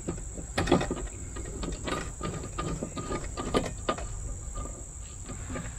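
Klein 11-in-1 screwdriver with a square bit tightening the screw on a metal breaker panel cover: scattered small clicks and scrapes of the bit and metal, strongest a little under a second in, at about two seconds and again at about three and a half. A steady high-pitched drone runs underneath.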